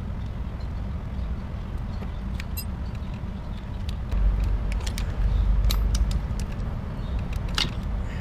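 Light metal clicks and clinks of gearbox parts being worked loose and lifted by hand from a split Honda EX5 motorcycle crankcase: the gearshift forks and their shaft. They come over a steady low hum, and a heavier low rumble swells for a couple of seconds in the middle.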